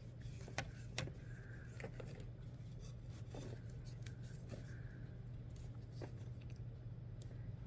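Faint scattered clicks and light scrapes of a beaded chain bracelet and its metal slide clasp being handled on a work surface, over a low steady hum.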